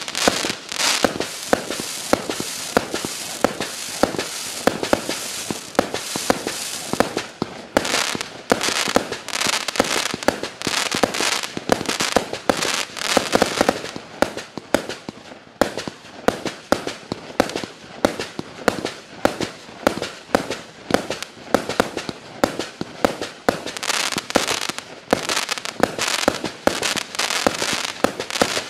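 Klásek Profi Show 200-shot, 20 mm compact fireworks cake firing in quick succession: a steady run of sharp launch pops and shell bursts, several a second, with crackling and hiss between the shots.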